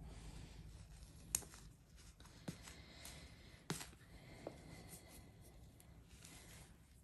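Faint handling of a reborn doll's cotton onesie: a few soft clicks, likely its crotch snaps being pulled open, amid light fabric rustle over a low room hum.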